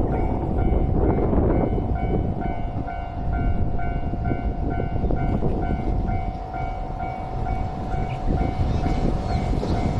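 Japanese level-crossing alarm ringing in steady pulses, about two a second, over the low rumble of a passing Yakumo limited express train.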